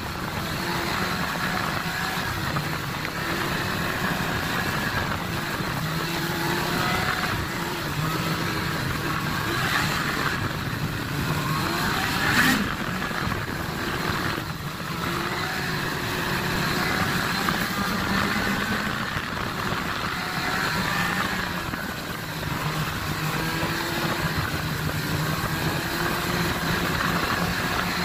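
Snowmobile engine running under way, its pitch rising and easing a little with the throttle. A brief sharp knock comes about halfway through.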